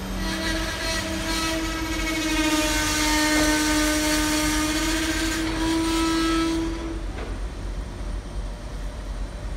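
Container freight train's wagons rolling past with a steady rumble and clatter. Over it, a long steady pitched tone sounds and stops about seven seconds in.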